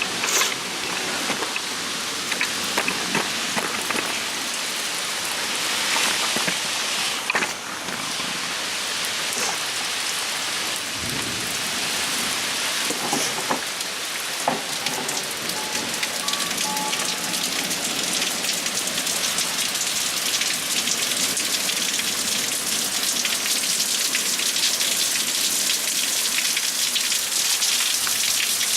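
Heavy rain falling steadily on hard surfaces: a dense hiss of drops with many small sharp hits.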